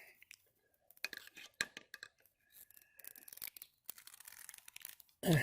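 A metal fitting is turned by hand into a wet wooden 4x4 post, making irregular small creaks and scrapes with a faint squeak in the middle. A short falling voice-like sound comes near the end.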